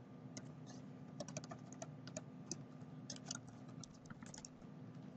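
Computer keyboard being typed on: faint, irregularly spaced key clicks.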